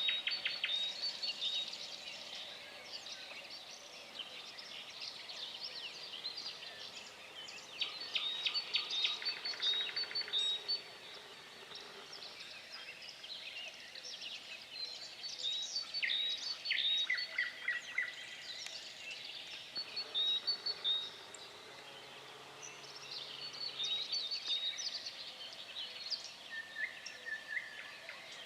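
Songbirds singing in an outdoor morning chorus: several birds give quick trilled and chirping phrases that come in bursts every few seconds and often overlap.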